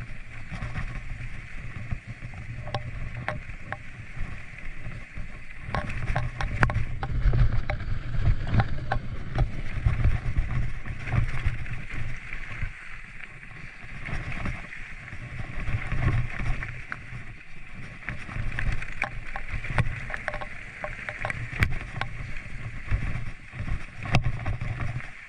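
Mountain bike riding over a rough trail: tyres rolling over dirt and stones, with frequent clicks and rattles from the bike over a low rumble of wind on the microphone. It gets louder and rougher about six seconds in.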